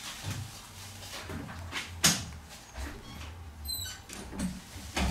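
Faint handling noises as a smartphone is held and its touch screen tapped: scattered soft clicks, with a sharper click about two seconds in and another near the end, over a low hum.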